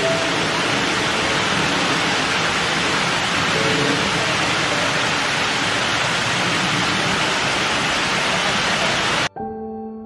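Waterfall water rushing steadily, cut off suddenly near the end, where soft ambient music with long held notes begins.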